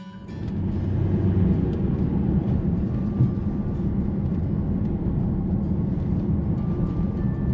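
Car on the move: a steady, low engine and road rumble.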